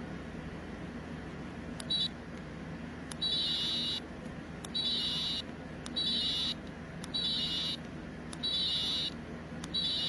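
Electronic toy sound chip of a light-up unicorn keychain beeping: a high-pitched tone about two-thirds of a second long, each with a small click at its start, repeating about every 1.2 seconds from about two seconds in.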